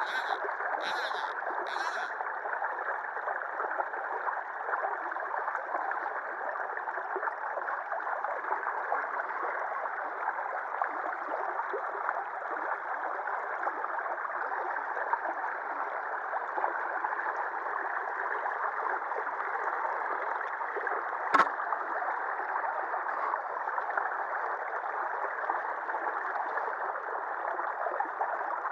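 Shallow river water rushing and rippling steadily over and around a concrete ledge. A few light ticks come in the first two seconds, and a single sharp knock about three quarters of the way through.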